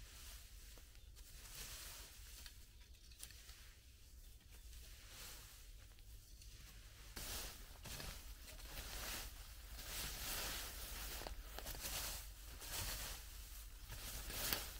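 Garden rake scraping and rustling through dry leaf litter and forest soil in repeated strokes about a second apart, louder in the second half.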